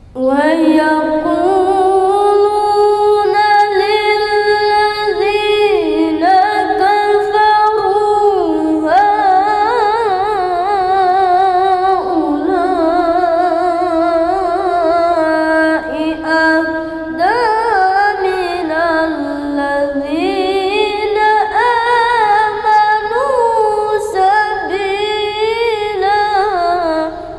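A single voice reciting the Quran in the melodic tilawah style: long sustained notes with quivering vibrato and ornamented runs that climb and fall. The voice is split into several long phrases with short breaths between them.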